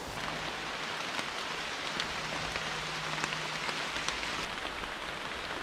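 Steady rain falling, an even hiss with scattered ticks of individual drops as a storm arrives.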